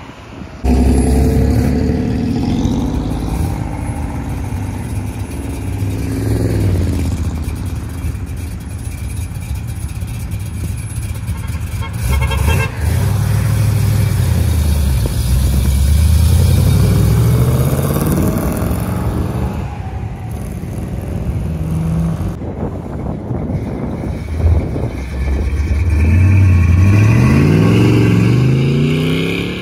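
A car engine revving up and down several times, its pitch climbing and falling in long sweeps.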